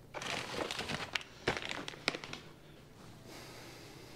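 Packaging rustling and crinkling as it is handled, with a few sharp clicks and knocks in the first couple of seconds, then only a faint hiss.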